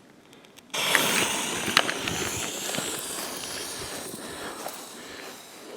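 A lit firework fuse on a Painted Galaxy cake catches about three-quarters of a second in and burns with a loud hiss and a few sharp crackles. The hiss slowly fades before the cake fires.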